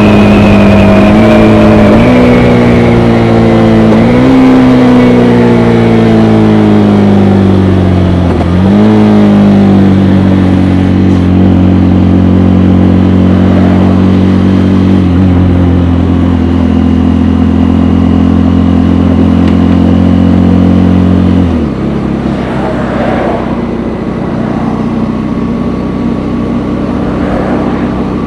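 KTM Gen 3 Duke's single-cylinder engine through its stock exhaust, slowing down: the note falls with a short rise at each of several downshifts over the first nine seconds. It then holds a steady note, and about twenty-one seconds in drops to a lower, quieter note near idle.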